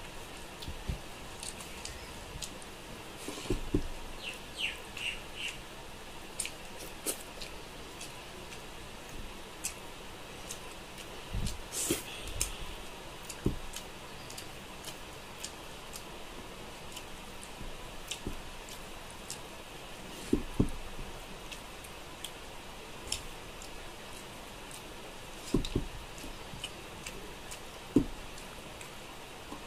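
Eating rice and curry by hand from a steel plate: scattered soft clicks, smacks and chewing sounds, with fingers tapping and scraping on the plate and a few louder knocks, the loudest near the end.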